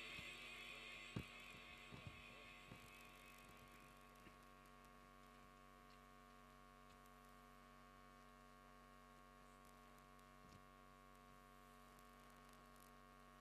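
Near silence with a steady electrical mains hum; the echo of the reciter's voice fades out over the first few seconds, with a few faint clicks.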